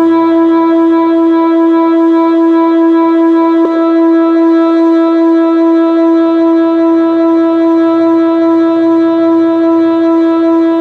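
Whelen WPS-2906 electronic outdoor warning siren sounding a loud, steady tone that holds one pitch without rising or falling.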